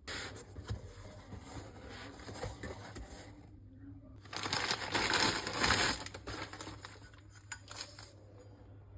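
Close rustling, crinkling and small clicking handling noises, louder for a couple of seconds around the middle.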